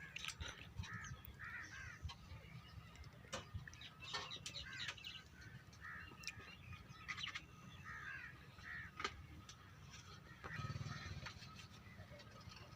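Crows cawing over and over, faint, over a low steady rumble, with a few sharp clicks.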